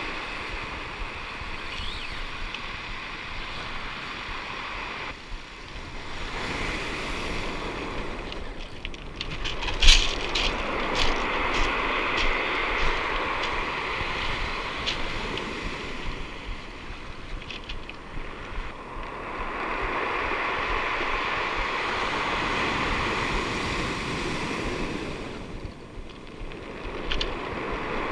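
Surf breaking and washing up a pebble beach, the noise swelling and fading with each wave, with wind on the microphone. A few sharp clicks stand out, the loudest about ten seconds in.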